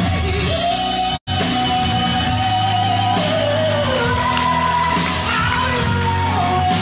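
A woman singing long held, sliding high notes live, backed by grand piano, electric guitar and drums. The sound cuts out completely for a split second about a second in.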